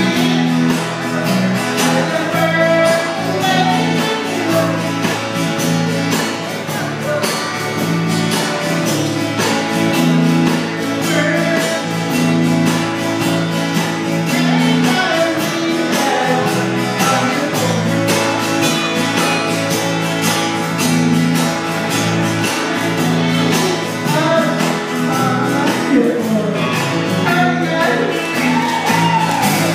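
Live band playing a song with electric and acoustic guitars and a drum kit keeping a steady beat, with a singer's voice over the top.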